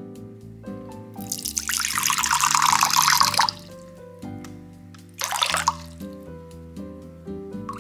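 Water poured into a glass measuring jug: one steady pour of about two seconds, then a brief second pour, over soft piano background music.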